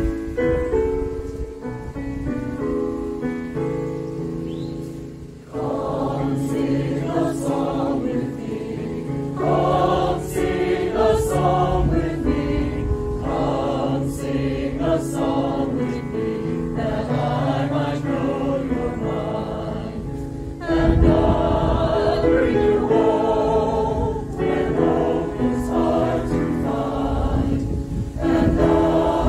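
A choir singing a hymn. The voices come in about five seconds in, after a short keyboard introduction.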